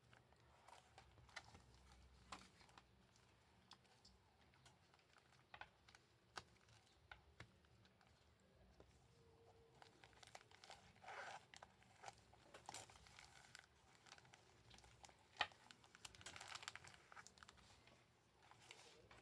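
Faint crinkling and rustling of packaging as a men's long wallet is handled, with scattered small clicks and taps. There are a few louder rustles past the middle and one sharp tap a little after that.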